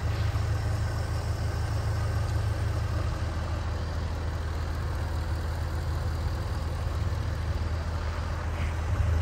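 2012 Jaguar XKR's 5.0-litre supercharged V8 idling steadily with a low, even note, a little louder near the end.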